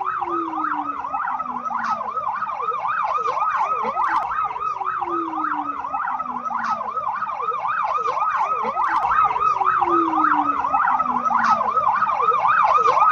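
Emergency vehicle siren on a rapid yelp, about four quick rising-and-falling sweeps a second, growing louder toward the end. A lower tone slides slowly downward underneath every few seconds.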